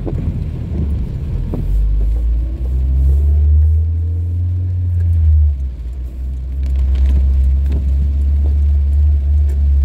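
Steady low rumble of a car driving, heard from inside the cabin; it swells about two seconds in, dips briefly near the middle, then holds.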